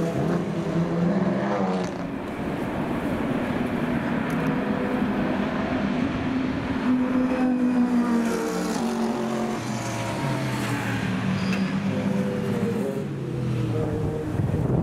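Race car engines running at speed on a circuit, several at once, their pitch rising and falling as they accelerate and change gear.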